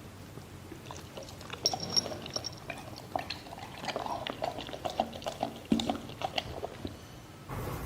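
A dog eating: irregular wet licking, smacking and chewing sounds that start about a second and a half in and die down near the end.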